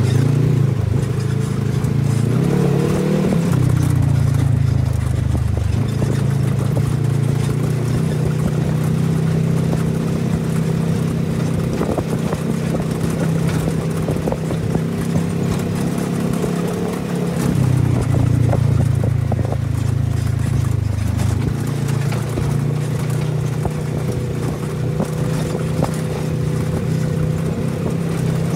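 Side-by-side UTV engine running under way, heard from the cab: a steady drone whose pitch rises and falls with the throttle a couple of times, with occasional knocks and rattles as it rides over the stony track.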